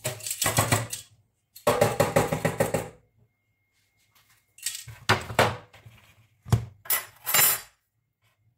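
Kitchen utensil clinking and scraping against a mixing bowl in five short bursts of rapid strokes while the sifted dry cake mix of flour, baking powder and soda is stirred.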